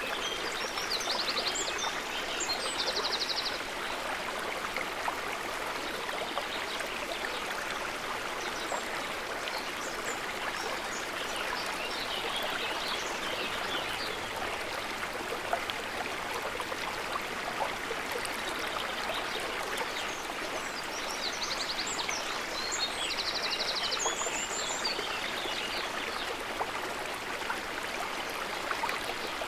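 A stream of running water rushing steadily. A few short, high, rapid chirps come near the start and again about two-thirds of the way through.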